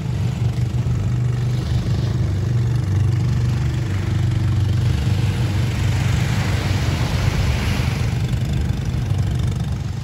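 Motorized outrigger boat (bangka) engine running steadily as the boat passes close by, a loud low drone.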